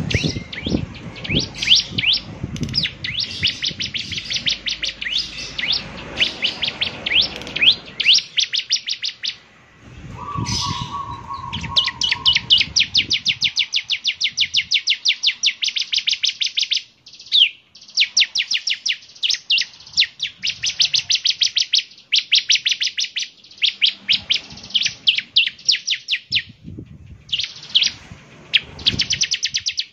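Ciblek (prinia) singing long, rapid runs of high, sharp chirps, many notes a second, broken by a few short pauses.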